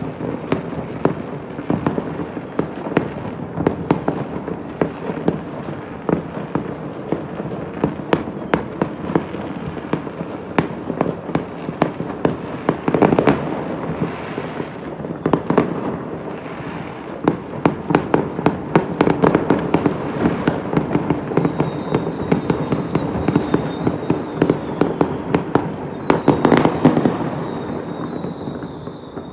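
Fireworks going off all over a city at once, heard from high above: a continuous crackle of many distant bangs and pops blending into a rumbling wash, with louder clusters of bursts about 13 seconds in and again near the end.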